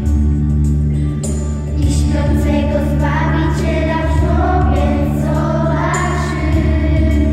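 Young girls singing a song into a microphone over a steady sustained instrumental accompaniment. The voices are strongest from about two seconds in until near the end.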